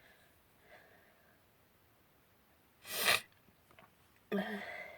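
A person sneezing once in a pollen allergy fit, a sharp burst about three seconds in, followed near the end by a short voiced sound.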